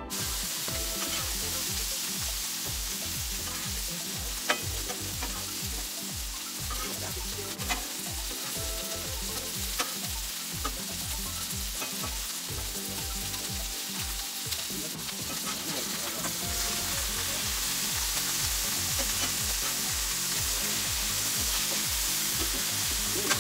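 Burger patties, bacon and onions sizzling on a Blackstone flat-top griddle: a steady frying hiss, with a few sharp clicks of a metal spatula against the griddle.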